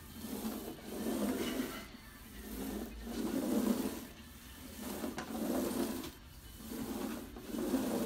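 Bissell Grand Rapids manual carpet sweeper pushed back and forth over carpet, its brush rubbing the pile in a swishing sound that swells and fades with each stroke, about one stroke every one and a half to two seconds.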